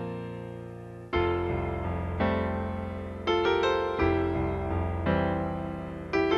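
Closing-credits theme music: chords struck about once a second, each fading before the next, over a sustained bass line.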